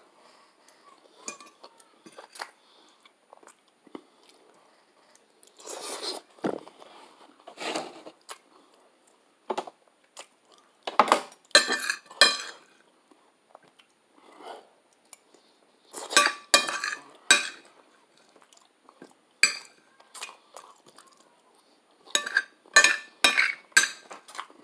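Cutlery clinking and scraping against a plate in short clusters of sharp clicks, three times, while someone eats pasta. Between the clusters there are softer chewing sounds.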